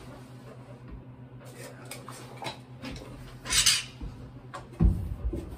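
Steel bar clamps clinking and knocking as they are set and tightened on a wooden framing member, with a short scrape about three and a half seconds in and a knock near the end.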